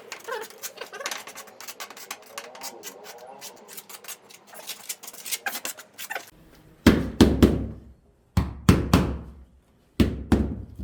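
Wooden floorboards being knocked into place during installation. A quick run of light clicks and taps is followed, about seven seconds in, by about five heavy thuds.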